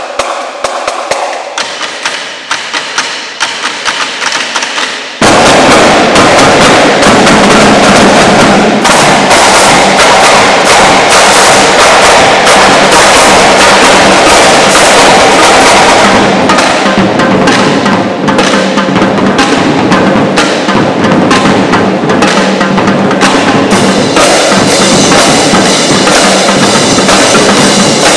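Marching drumline of snare drums, tenor drums, bass drums and crash cymbals playing. It opens with about five seconds of quieter, separate sharp taps, then the full line comes in suddenly and loud with dense drumming.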